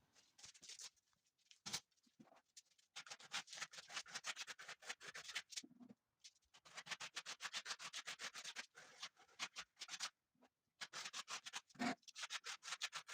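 Putty knife spreading finishing putty on a wall: rapid scraping strokes in runs of a few seconds, with short pauses between them.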